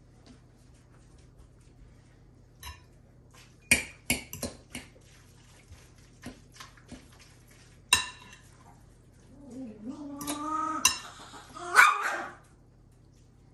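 Utensils and dishes clinking and knocking, with a few sharp loud strikes. Near the end comes about three seconds of a vocal sound whose pitch wavers up and down, ending in a loud peak.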